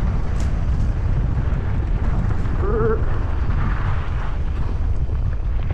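Heavy wind buffeting on the camera microphone while riding a mountain bike, a steady low rumble, with a brief vocal sound about three seconds in.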